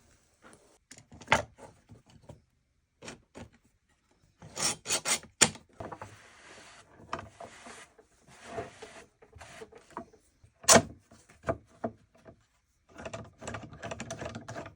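Broken pieces of a poplar cutting board rubbing and scraping against each other as they are slid into place during a glue-up. Sharp wooden knocks are scattered through it, with a quick run of them about five seconds in and one of the loudest near eleven seconds.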